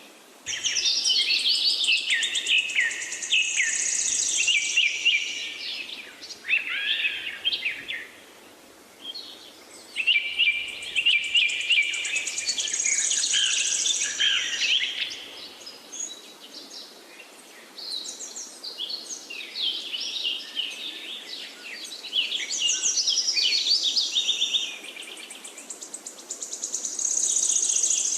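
A chorus of forest birds chirping and trilling, several birds at once, in runs of song lasting several seconds with short lulls between, over a steady faint background hiss.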